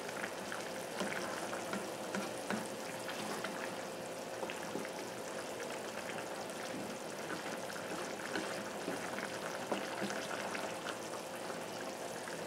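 Chicken pieces simmering in broth in a non-stick frying pan, a steady bubbling hiss, while a wooden spatula stirs them with soft scrapes and light knocks against the pan. A faint steady hum sits underneath.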